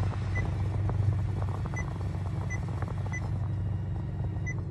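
Honda Civic's climate touchscreen beeping at each tap, five short beeps, as the fan speed is stepped down. The blower's rush of air fades with each step, over a steady low hum from the car.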